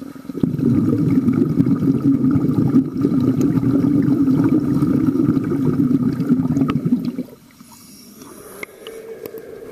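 Muffled underwater bubbling and rumbling, heard below the pool's surface, loud for about seven seconds and then cutting off sharply, leaving a fainter steady hum.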